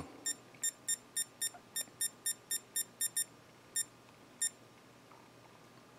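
Short high electronic key-press beeps from an Avon Technologies digital weather-station alarm clock, one beep per button press, as the year setting is stepped up from 2005 to 2018. About a dozen come in quick succession, three or four a second, then two more spaced out past the middle.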